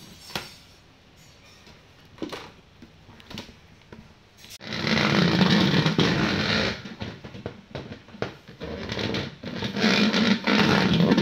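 A blue-lidded plastic tub being pushed and scraped across a tile floor by a cocker spaniel puppy's head, with a few light knocks at first and long stretches of scraping from about halfway through.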